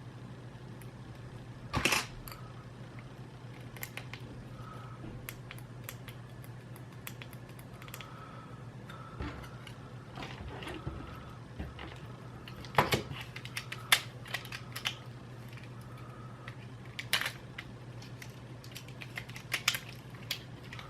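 Plastic clicks and taps of PS4 controller parts being handled and fitted together, with a few louder knocks about 2 seconds in, around 13 to 14 seconds and near 17 seconds, over a steady low hum.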